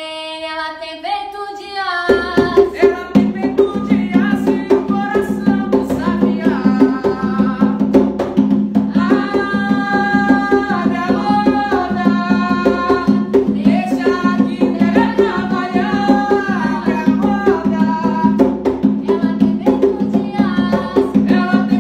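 A woman sings a devotional song unaccompanied; about two seconds in, an atabaque hand drum played with both palms comes in and keeps a quick, steady rhythm under her singing, with a man's voice joining at times.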